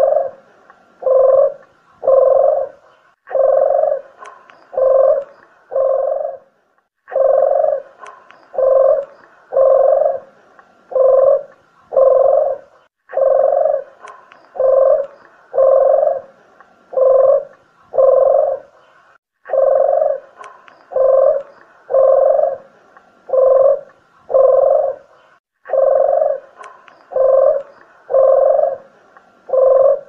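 Spotted dove (tekukur) cooing in repeated phrases of several short, low coos, about one to two a second, with brief pauses between phrases. It is a recorded call played as a lure to draw doves in for hunting.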